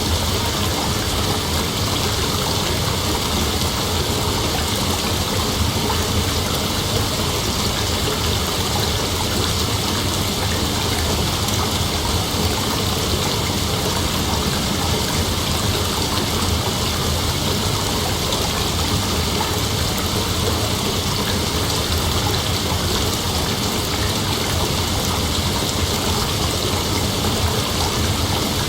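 Steady, even rush of heavy rain, with no thunderclap.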